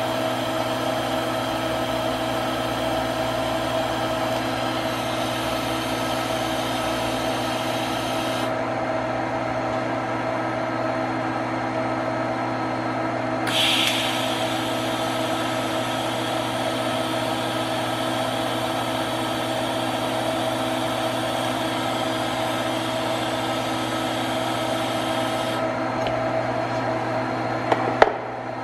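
TIG welding arc tacking strut braces in place: a hiss over a steady electrical hum that stops about eight seconds in, flares briefly around fourteen seconds, and comes back for a couple of seconds near the end. Two sharp clicks follow near the end.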